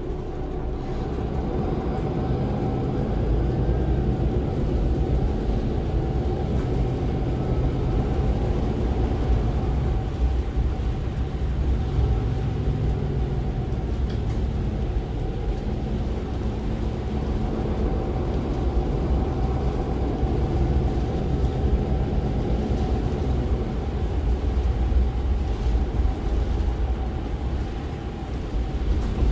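Interior running noise of a MAN NL283 Lion's City city bus on the move: low drone of its six-cylinder diesel and drivetrain with road noise and a steady whine. It grows louder over the first few seconds and then holds steady.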